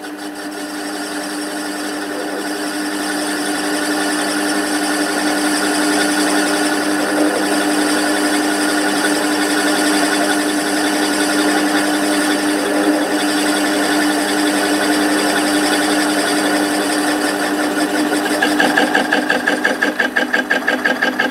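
Small metal lathe running with a steady hum while a turning tool takes a light finishing cut on the outer rim of a spinning flywheel disc. The sound grows over the first few seconds and pulses rapidly for the last few seconds.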